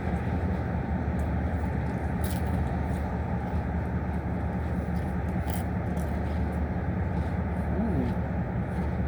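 Steady low hum of an idling car engine, with a few faint short clicks.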